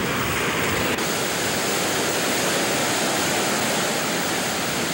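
Steady, even rushing of hurricane storm noise, wind and water, which cuts off suddenly near the end.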